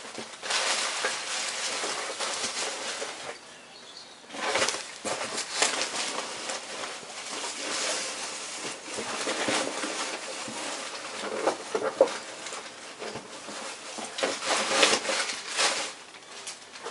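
Packaging of a trading card box being handled: plastic wrap and cardboard rustling and crinkling in uneven bursts, with a few sharp crackles.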